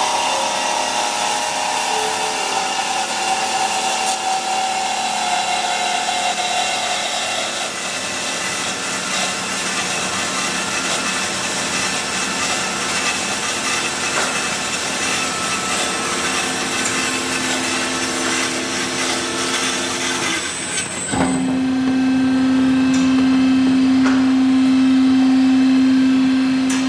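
JMT DCBA 360 horizontal band saw running, its blade cutting slowly through a clamped piece of wood. About 21 seconds in the cutting noise stops and a steady, louder hum carries on.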